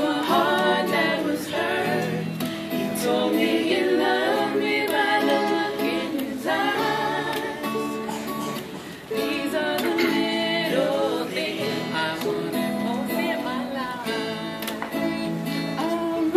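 Women singing together to two strummed small acoustic guitars and a ukulele. The music dips briefly a little past the middle, then picks up again.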